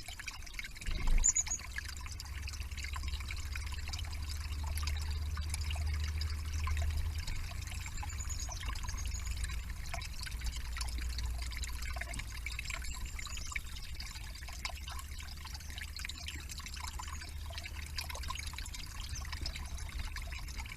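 Steady trickle of running water, with a few faint high bird chirps scattered through it and a single thump about a second in.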